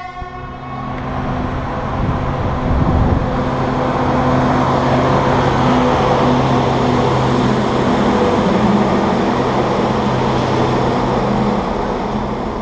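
Colas Rail diesel locomotive passing close at speed. A steady engine drone under wheel-on-rail rumble builds to its loudest around the middle as it goes by, then eases off near the end.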